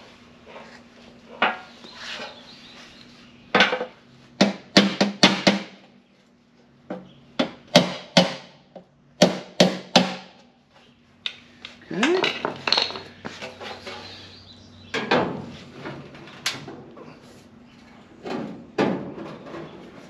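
Hammer tapping on a thin steel replacement body panel, working out a small notch: clusters of two to four sharp metallic taps every second or two, with a stretch of scraping about twelve seconds in as the panel is handled.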